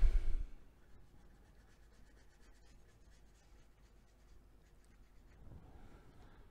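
A paintbrush stroking and dabbing on watercolour paper, faint and scratchy, after a low thump right at the start.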